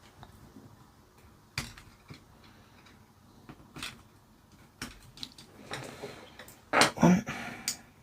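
Scattered small clicks and taps of hand tools being handled on a workbench during desoldering, followed near the end by a louder, rough rustling burst lasting about a second.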